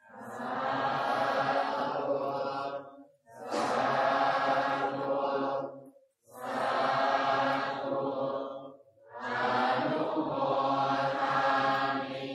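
Buddhist chanting by voices in unison, sung in four long, drawn-out phrases of about three seconds each with short pauses for breath between them.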